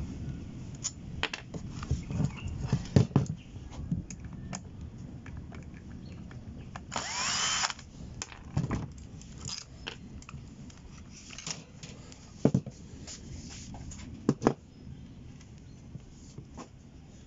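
Makita cordless drill-driver run for about a second, about seven seconds in, its whine rising as it backs out the screws of an electric fan motor. Around it are scattered clicks and knocks of screws and metal motor parts being handled, with two sharper knocks later on.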